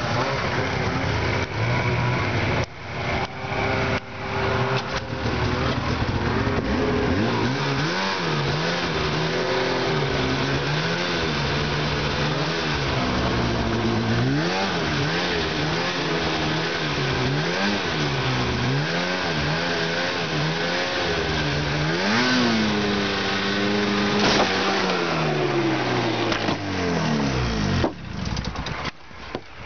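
Polaris snowmobile engine running, revved up and down over and over, about once every second and a half, then held at a higher steady speed before its pitch winds down and drops away near the end.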